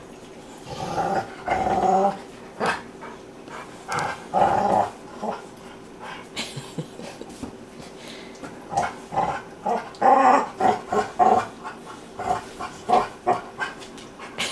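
Two dogs play-growling and grumbling as they wrestle and mouth each other, in short irregular bouts that come in clusters about a second in, around four seconds in, and again from about nine to thirteen seconds.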